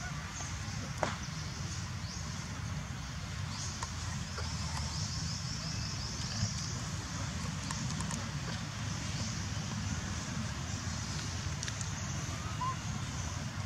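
Outdoor background: a steady low rumble under a high, pulsing insect chirr, with a few faint clicks.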